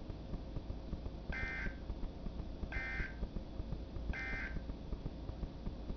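NOAA Weather Radio EAS digital data tones: three short warbling beeps about a second and a half apart, the end-of-message signal that closes a severe thunderstorm warning broadcast. A low hum and hiss from the radio run underneath.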